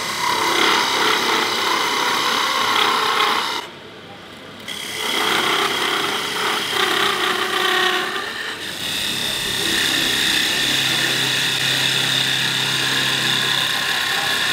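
A parting tool cutting into a spinning blackheart sassafras blank on a wood lathe: a rasping scrape in three spells, with a short break about four seconds in and another near eight seconds. A low steady lathe-motor hum runs under the later part.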